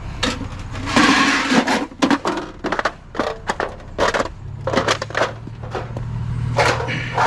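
Clattering and knocking of curbside scrap being handled: a run of sharp knocks and scraping, with a louder rustling clatter about a second in. A steady low hum joins about halfway through.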